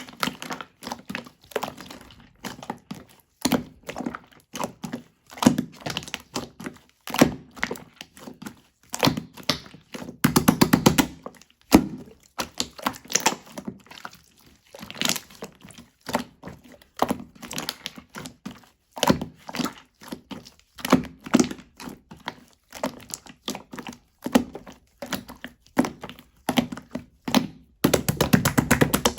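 Milky-white slime being squeezed and pressed by hand, making irregular sticky pops and clicks, with fast runs of tiny crackling pops about ten seconds in and again near the end.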